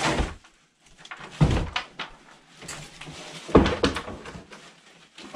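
Heavy thumps and rustling as someone moves over a rotting wooden floor strewn with debris. Three heavy thumps, at the start, about a second and a half in and about three and a half seconds in, with lighter knocks and rustling in between.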